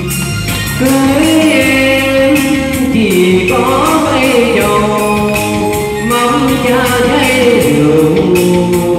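Man singing a Vietnamese ballad into a microphone over a backing track with a steady beat, amplified through a PA.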